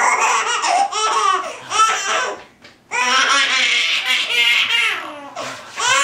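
Six-month-old baby girl laughing hard: rapid strings of ha-ha pulses in two long runs, with a short breath-break about two and a half seconds in and a third run starting near the end.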